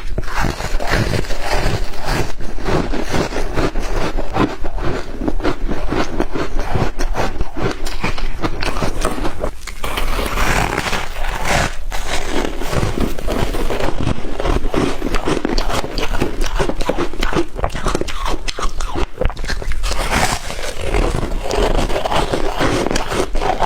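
Shaved ice being crunched and chewed close to the microphone: a dense, continuous run of rapid crunches, with a couple of brief pauses.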